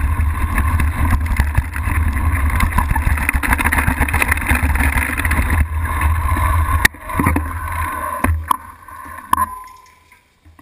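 Mountain bike riding downhill over rough ground, heard from a camera mounted on the bike: a steady rumble of wind on the microphone and the bike rattling. About seven seconds in there is a sharp knock, and then the noise dies away with a few clicks as the bike slows to a stop on pavement.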